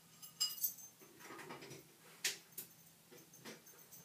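A small dog moving about on a hard surface: a few light, irregular clicks and a faint metallic jingle of its collar tags, with a soft rustle.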